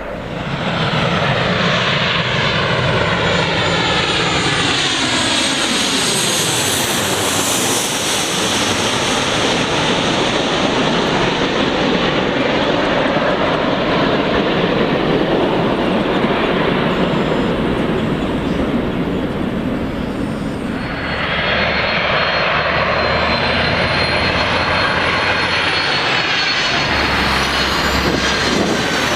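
Jet airliner's engines passing low overhead on landing approach, a loud steady roar with a sweeping, falling whoosh as it goes by. About 21 seconds in, a different steady rumble with a thin high whine takes over.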